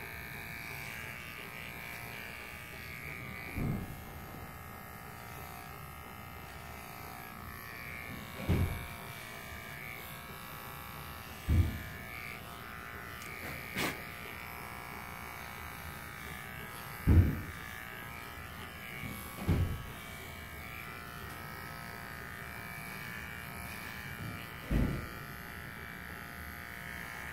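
Cordless pet grooming clippers running with a steady buzz, trimming the fur between the pads of a dog's hind paw. Several short dull thumps are scattered through, with one sharp click about halfway.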